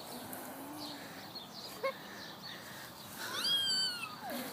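A domestic cat gives one long meow about three seconds in, rising briefly and then sliding down in pitch.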